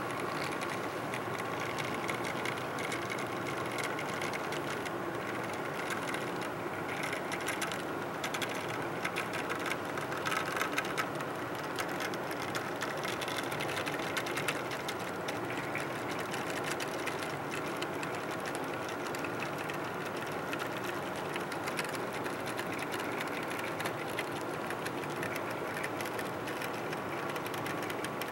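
HO scale model freight train rolling past on its track: a steady whirring clatter of small metal wheels on the rails, with fast fine ticking and a faint steady whine.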